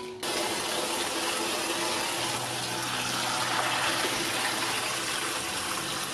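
Water running hard from a tap, starting abruptly about a quarter second in, as a bowl is filled for soaking or rinsing.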